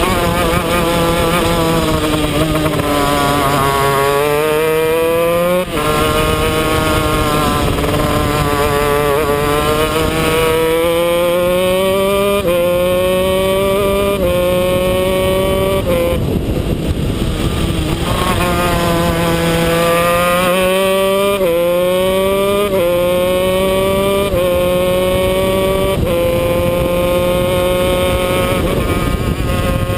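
125cc two-stroke shifter kart engine heard onboard, revving hard up through the gears. The pitch climbs, then drops sharply at each upshift: once about six seconds in and twice in quick succession around 21 to 23 seconds. Around 16 seconds the revs break up and fall briefly as the kart slows, then the engine picks up again.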